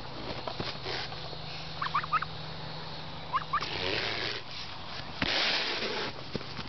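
Domestic fowl giving a few short, rising calls, a pair about two seconds in and another pair just past three seconds, with two stretches of rustling later on.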